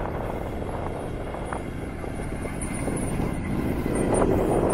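A 4WD ute towing a hybrid caravan drives across soft sand. Its engine and tyres make a steady low sound that grows louder about four seconds in as the rig draws close.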